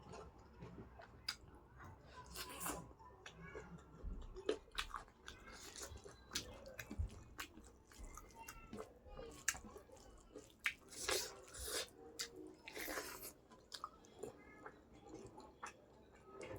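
Close-miked chewing: irregular wet mouth clicks and smacks, with a few crunchy bites.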